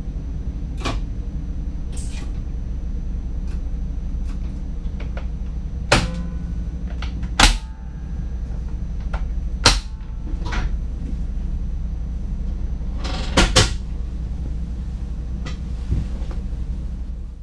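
Inside the cab of a DDZ double-deck electric train: a steady low running rumble with irregular sharp clacks and knocks every second or few, the loudest about six, seven and a half and ten seconds in, and a quick pair about thirteen seconds in.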